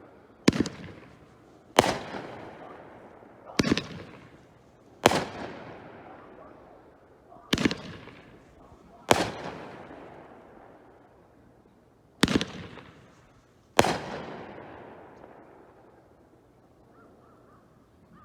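Zombie Brand Chiller 200-gram fireworks cake firing: eight sharp bangs in pairs about a second and a half apart, each fading out over a second or two. The last bang comes about fourteen seconds in, after which it dies away.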